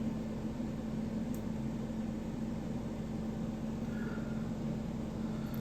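Steady low background hum, like a fan or air conditioner running, with one faint sharp click about a second in.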